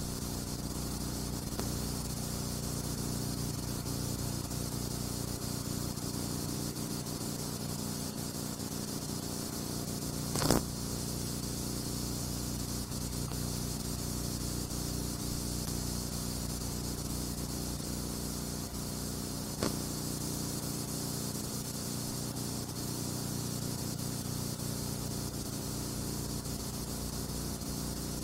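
Steady hiss and low hum of a silent film transfer with no soundtrack, broken by two brief clicks, one about ten seconds in and another about nine seconds later.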